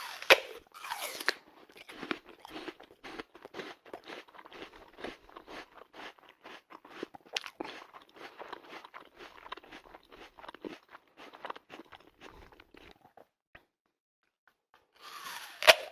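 A person biting into a crisp apple with a loud crunch, then chewing it in a long run of quick crunchy strokes that grow fainter and stop; a second loud bite near the end.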